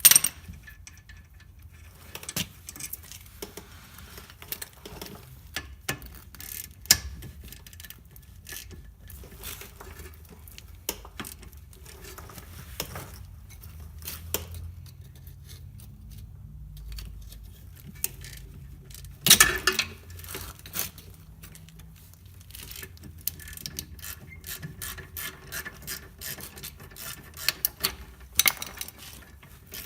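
Hand ratchet clicking in quick runs as the two 13mm rear brake caliper bolts are backed out, broken by a few louder sharp knocks of metal tools or parts.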